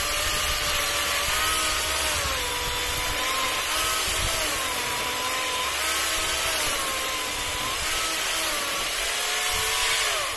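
Dolmar electric chainsaw running and cutting wood, its motor whine sagging and recovering again and again as the cut loads it, then stopping at the end.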